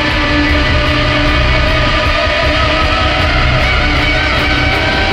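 Instrumental music: two guitars playing a dense drone, several tones held steadily over a constant wash of noise.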